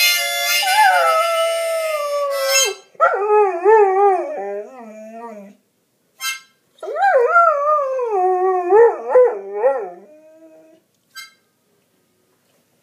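Goldendoodle howling along to a harmonica. A harmonica sounds for the first two or three seconds, then the dog gives two long, wavering howls, the second ending about eleven seconds in.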